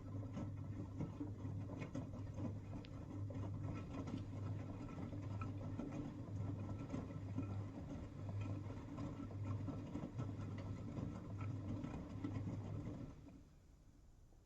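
V-Zug Adora SLX 258 washing machine running, a low motor hum with a fine crackle over it, which stops about 13 seconds in.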